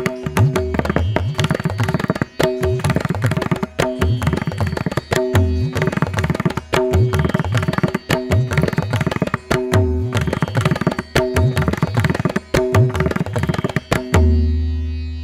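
Background music: a fast, busy percussion rhythm over held tones, ending on one sustained low note near the end.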